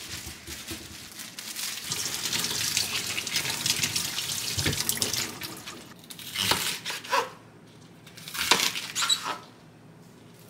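Kitchen tap running while vegetables are rinsed under it, with rustling and splashing. After about six seconds the water stops, and two short bursts follow as a knife cuts bok choy in half on a plastic cutting board.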